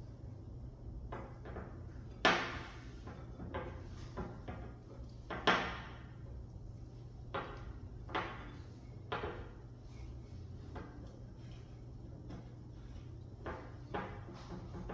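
Soft butter slime made with air dry clay being kneaded and stirred by hand in a bowl: irregular sticky squelches and knocks, the two loudest about two and five seconds in.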